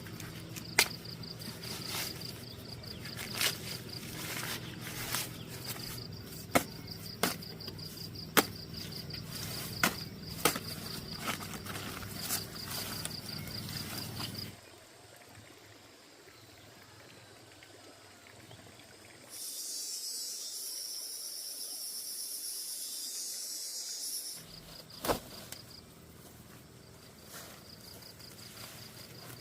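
Insects trilling in a fast, even pulse, with scattered sharp clicks and knocks over a low hum. About halfway through the sound drops away after a cut. A loud high hissing buzz follows for about five seconds, then the trill and clicks return.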